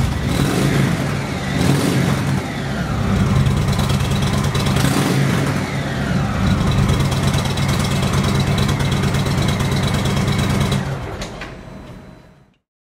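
Indian Thunder Stroke 111 air-cooled V-twin of a 2015 Indian Chief Classic idling and being revved on the throttle, the revs rising and falling back several times. The sound fades out near the end.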